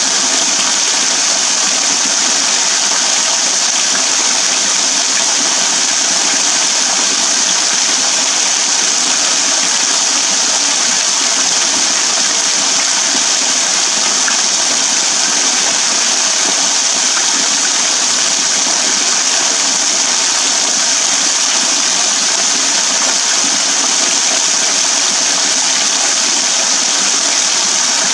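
Small waterfall pouring off a rock overhang in thin streams and drops, splashing into a shallow pool: a steady, bright hiss of falling water.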